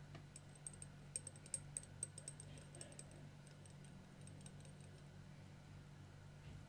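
Faint, irregular little clicks and clinks of tweezers against a small glass jar as a tiny watch part is rinsed in cleaning fluid, over a low steady hum. The clicks start about half a second in and die away about five seconds in.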